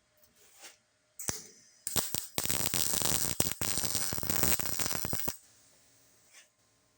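Titanium MIG 140 welder running .024 wire, tack-welding a thin sheet-metal patch panel: a couple of brief arc strikes, then about three seconds of steady crackling arc that cuts off suddenly.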